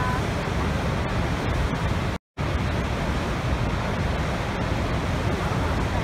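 Steady roar of a huge waterfall, the Horseshoe Falls at Niagara, pouring over its brink. The sound cuts out completely for a split second about two seconds in, then carries on as before.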